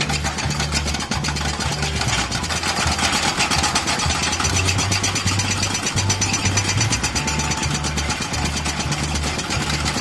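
A row of Hyundai crawler excavators with hydraulic breakers hammering rock together, making a dense, rapid, overlapping clatter over the running engines.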